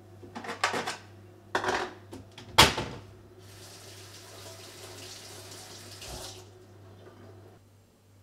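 Dishes clattering with a few sharp knocks, the loudest about two and a half seconds in, as a bowl is taken from the dish rack; then a kitchen tap runs into the sink for about three seconds and is turned off.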